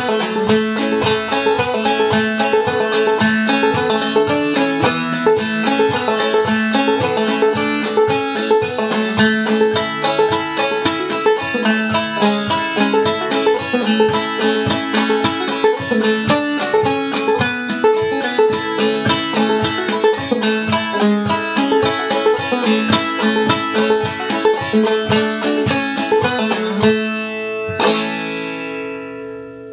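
Five-string banjo played clawhammer style: a quick old-time tune in the key of A, the banjo tuned aEAC#E (open G tuning capoed at the second fret). Near the end the tune stops on a final stroke that rings out and fades.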